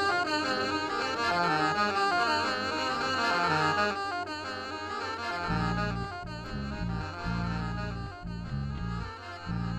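Alto saxophone playing a quick, wavering melodic line. About halfway in, deep electric bass notes come in, starting and stopping in a choppy rhythm.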